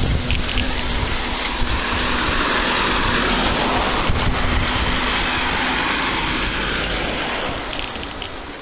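Wind rushing over the microphone of a moving bicycle, with a car going past on the road. The rushing swells through the middle and fades near the end.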